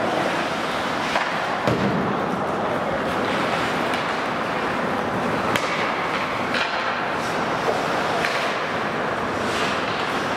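Ice hockey play in an indoor rink: a steady hiss of skates on the ice and arena noise, broken by several sharp knocks of sticks, puck and boards, the loudest about two seconds in.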